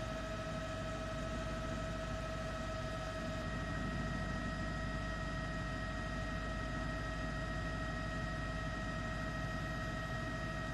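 Helicopter noise: a steady engine drone with a constant high whine over a low rumble, unchanging throughout.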